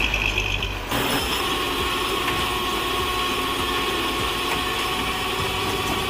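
Tow truck's engine running steadily, with a faint steady whine. The sound shifts abruptly about a second in.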